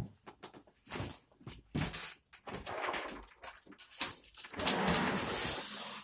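A door being opened off-mic: scattered clicks and knocks, a sharp knock about four seconds in, then a longer scraping rush of noise as the door swings open.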